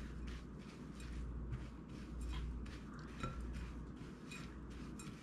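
Silicone spatula stirring dry rolled oats and cocoa powder in a glass mixing bowl: soft, repeated rustling scrapes with a few light clicks against the glass.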